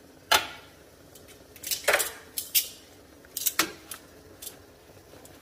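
Metal kitchen tongs clicking and clacking against a metal 16-quart steamer pot as they reach in among the corn husks: a string of sharp metallic clicks, the loudest about a third of a second in.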